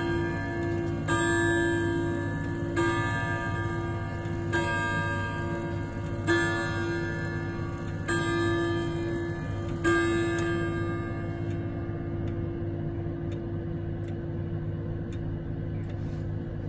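Hermle hall clock striking the hour on its chime rods: six evenly spaced strokes about 1.75 s apart, each ringing on into the next. After the last stroke, about ten seconds in, the ring fades away under the movement's faint steady tick.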